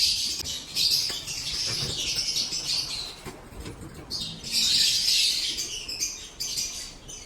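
Many lovebirds chattering and chirping together in a dense, high-pitched din that thins out briefly in the middle and again near the end.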